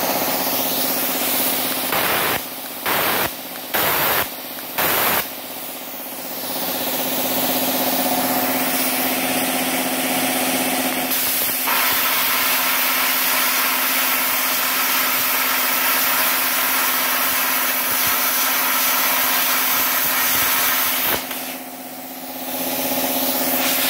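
A belt-driven two-cylinder piston air compressor runs steadily under a plasma cutter's torch. The torch gives four short hisses about two to five seconds in, then a long, loud, steady hiss as the plasma arc cuts through the steel bar. The hiss stops about 21 seconds in.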